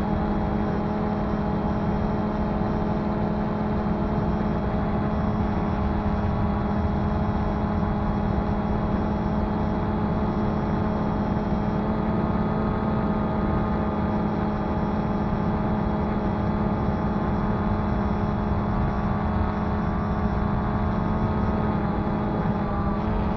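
DJI Phantom 2 quadcopter's four electric motors and propellers running steadily, a loud hum with a strong low tone and many overtones, heard through an action camera mounted on the drone. The pitch wavers briefly near the end.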